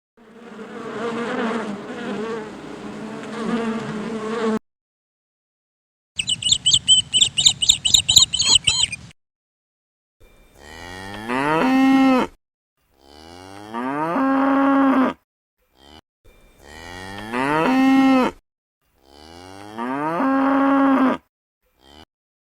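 Cow mooing four times, long calls that rise in pitch, each about two seconds, coming roughly every three seconds in the second half. Before them come a steady droning sound with a few held tones, then a rapid high chirping.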